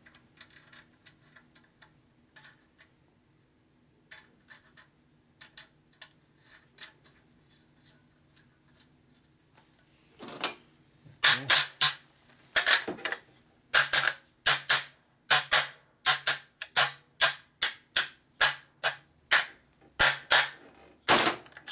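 Hammer blows on a threaded steel part with nuts run onto it to protect the threads, beating it straight: light taps and clicks at first, then about halfway through a run of hard metallic strikes, about two a second, each with a short ring. A steady low hum runs underneath.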